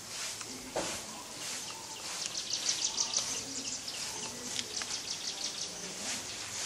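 Outdoor ambience of birds and insects calling. A single sharp click comes just under a second in, and about two seconds in a rapid high-pitched trill of chirps runs for a second and a half.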